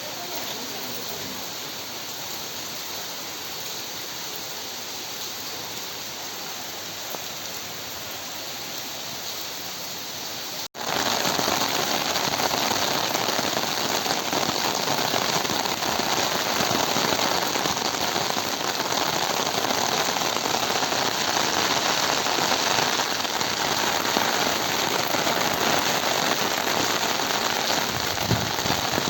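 Steady rain falling, an even hiss of many drops. About ten seconds in, it cuts abruptly to a louder, heavier downpour beating on a surface.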